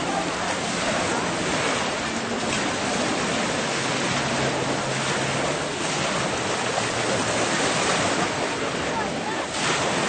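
Beach ambience: ocean surf washing ashore as a steady rush, under a faint hum of distant voices.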